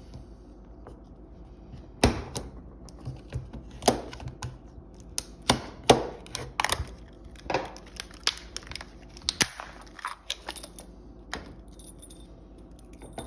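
Irregular clicks, knocks and rattles from a Brinks 172 laminated steel padlock being handled, a little under two a second, some louder than others.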